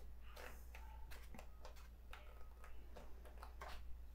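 Faint, quick rustles and flicks of paper pages being turned one after another in a softcover planner.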